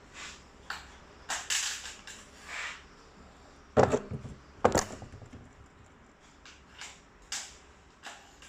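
Spring-powered airsoft rifle with a 120 g SAP piston and a PDI M140 spring being cycled and fired: two sharp, loud cracks about a second apart near the middle, among lighter mechanical clicks and handling noises before and after.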